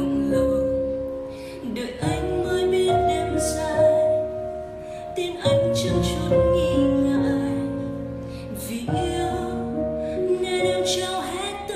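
A song with a female voice singing over long held chords that change every second or two.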